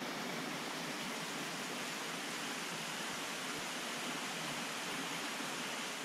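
Waterfall and stream water rushing, a steady, even hiss that starts abruptly.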